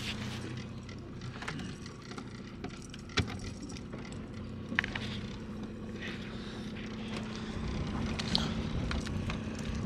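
Boat motor running steadily with an even hum, and two sharp clicks or knocks, one about three seconds in and another about five seconds in.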